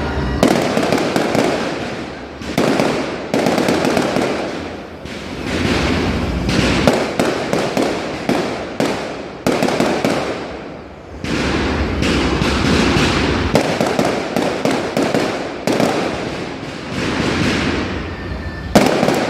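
Public firework display: aerial shells bursting in rapid succession with loud bangs, crackling and rolling echoes, almost without pause, and a sharp bang near the end.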